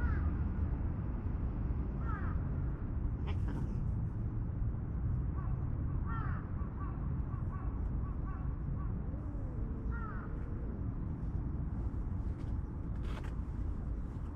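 Steady low outdoor rumble with a bird calling now and then in short falling notes, a few times across the span, and a couple of brief sharp rustling clicks, one near the end.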